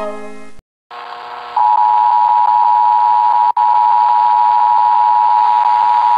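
Emergency Alert System two-tone attention signal, a steady pair of tones sounding together over broadcast hiss. It starts about a second and a half in, just after a short cut in the audio, and drops out for an instant around the middle. It marks the start of an emergency alert, here a tornado warning.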